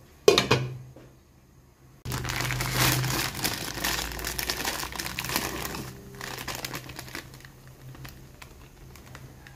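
A glass pot lid knocks once as it is lifted off, then a plastic instant-noodle packet crinkles loudly for about five seconds as the noodle blocks are shaken out of it into boiling water, fading near the end.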